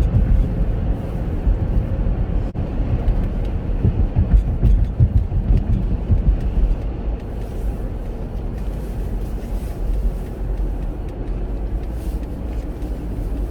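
Road and engine noise inside a moving Chevrolet Captiva's cabin: a steady low rumble that swells a little a few seconds in and eases slightly in the second half.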